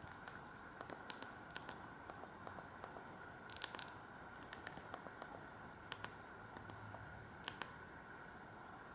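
Faint, irregular clicks and light handling noise over a low steady hiss with a thin faint hum; no ringtone melody.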